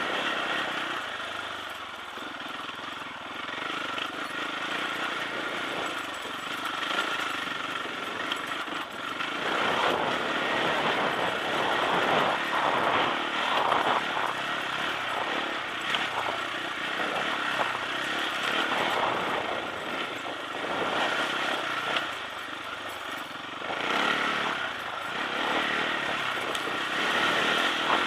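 Sherco enduro motorcycle engine running under way, its revs and loudness rising and falling every few seconds as the throttle is opened and closed, heard through a bike-mounted camera.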